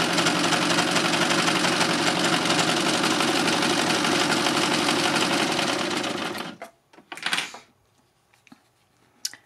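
Success Lucie four-thread overlocker running at a steady speed, sewing a four-thread overlock stitch on basic settings along the edge of a lightweight cotton piece. It stops about six and a half seconds in, followed by a brief rustle and, near the end, a single click.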